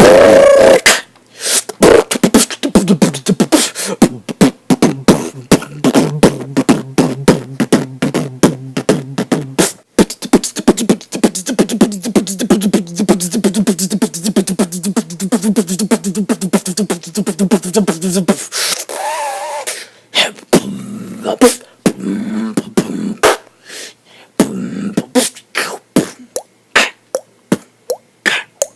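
Solo human beatboxing: rapid mouth-made drum hits and clicks, with a steady hummed bass line under the beat for two long stretches, then sparser single hits near the end.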